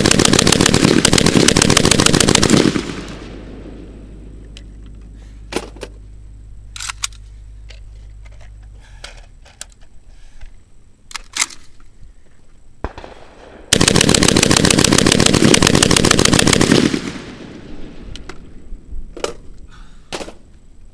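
Saiga 12 semi-automatic 12-gauge shotgun emptying an MD-20 drum in a rapid string of shots lasting about three seconds, then a second string like it about 14 seconds in. Scattered metallic clicks of gun handling come in between. Both strings run without a stoppage on Federal bulk-pack shells.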